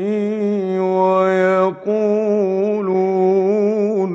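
A man's voice in melodic Quran recitation, holding long ornamented notes, with a short break a little under two seconds in. The phrase ends with an echo tail at the very end.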